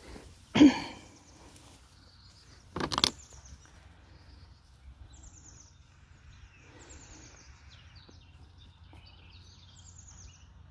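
Two short loud sounds, one a little under a second in and one about three seconds in, then small birds chirping in short, quick falling trills over faint outdoor background noise.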